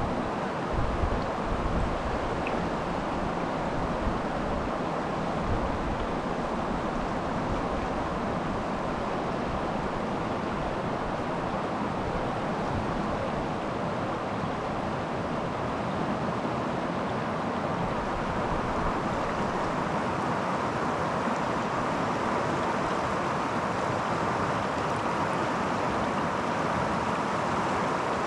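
Creek water rushing steadily, with wind buffeting the microphone in low gusts that are strongest in the first few seconds.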